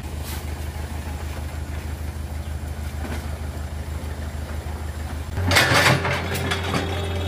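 Diesel engine of a Kato crawler excavator running steadily with an even low throb. About five and a half seconds in it gets louder, with a burst of clattering and a higher whine on top.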